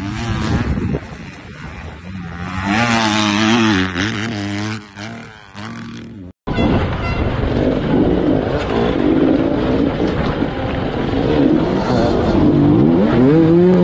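Motocross dirt bike engine revving, its pitch rising and falling as the throttle is worked. After a sudden cut, another dirt bike engine runs hard under a steady rush of noise, its pitch climbing near the end.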